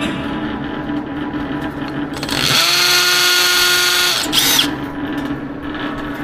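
Power drill running at a steady speed for about two seconds in the middle, followed by a brief second burst.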